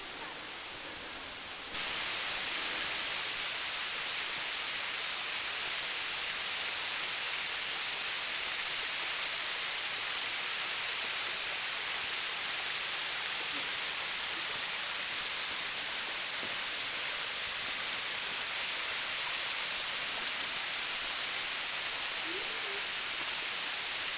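Small waterfall spilling in thin streams down tiered rock ledges: a steady hiss of falling and splashing water, which jumps louder about two seconds in.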